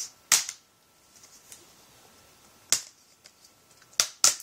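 Plastic screen bezel of a Gateway LT2802u netbook snapping as its clips are pried loose: four sharp clicks, one about a second in (near the start), one in the middle, and two close together near the end.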